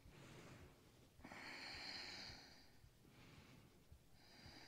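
A woman's quiet, audible breathing: one long airy breath about a second in, lasting about a second and a half, and another starting near the end.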